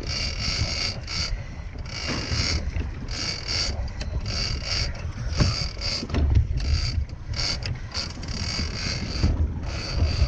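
Heavy big-game fishing reel cranked in quick repeated strokes, a high-pitched mechanical whirr in short bursts as line is wound in on a big fish. A steady low rumble of wind and boat runs underneath.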